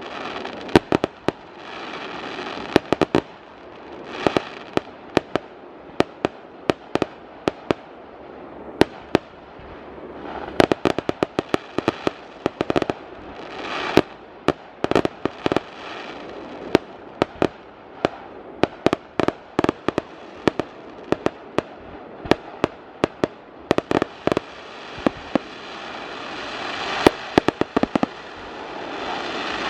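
Fireworks display: a rapid string of sharp bangs as shells burst, several a second, over a hissing crackle that swells and fades and grows louder near the end.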